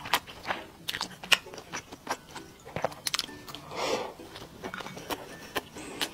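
Close-up mouth sounds of someone eating rice and spicy meat: wet smacks and clicks of chewing, several a second, with a short breathy rush about four seconds in.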